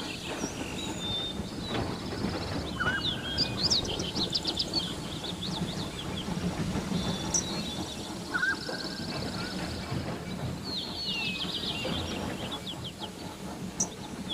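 Birds chirping in quick repeated runs over a steady low rumble of a train running along the track.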